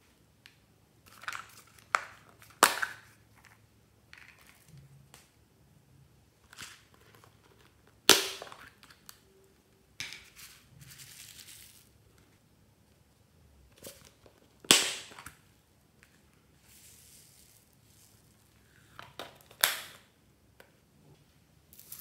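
Toppings being added to glass dishes of slime: sharp plastic clicks and snaps every few seconds as containers are handled and tapped, with soft rattling rustles as polystyrene foam beads are poured in.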